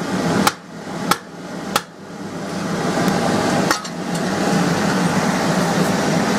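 Three sharp metal knocks, about half a second apart, then a fourth a couple of seconds later, as metal is knocked about on the steel forge hearth. From about two and a half seconds in, the coal forge's air blower swells into a steady rush as the fire is fanned.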